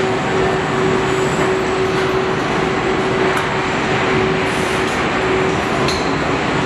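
Running assembly-line machinery in a truck body shop: a loud steady noise with a constant hum, and a few short high hisses and ticks in the second half.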